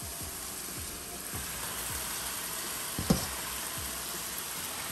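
Hot skillet of sautéing diced bell peppers sizzling steadily as seasoned raw ground chicken is added, the sizzle growing a little after about a second. A knock about three seconds in as the meat and spoon go against the pan.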